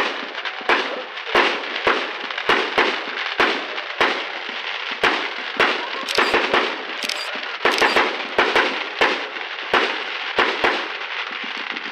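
Aerial fireworks exploding: a continuous run of sharp bangs, about two a second, bunching into a quicker flurry around six to seven seconds in.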